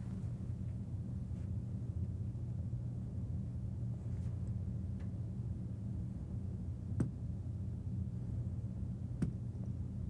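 A steady low hum, with two short sharp taps about seven seconds in and two seconds later: a rubber-headed reflex hammer striking the patellar tendon just below the kneecap to test the knee reflex.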